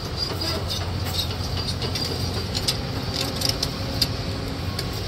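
Steady low engine rumble of motor traffic or a nearby vehicle, with scattered light clicks and knocks on top.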